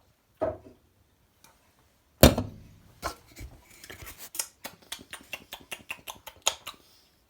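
A sip of beer from a glass, then a sharp knock about two seconds in as a glass is set down on a hard surface, followed by an irregular run of small clicks.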